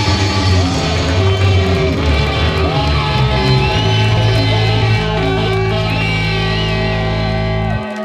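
Live rock music: electric guitar over a steady low bass line, ending on a held final chord that cuts off sharply near the end. High sliding whistles sound over it.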